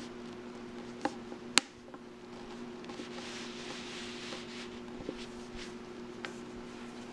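Paper poster rustling as its rolled edge is slid into a plastic poster hanger strip, with two sharp plastic clicks about a second and a second and a half in, the second the loudest, and a few fainter ticks later. A steady low hum runs underneath.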